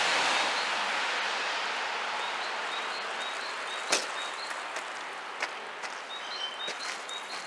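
Road noise of a vehicle that has just passed on a wet, slushy street, fading away steadily. From about two seconds in, a small bird gives short high chirps again and again, and a single sharp click sounds about halfway through.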